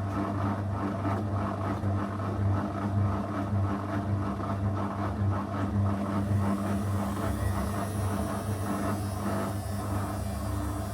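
Zanussi FL984CN front-loading washing machine running a 35° wash program: a steady motor hum with a pulsing low rumble as the drum turns. A faint high hiss joins about two-thirds of the way through.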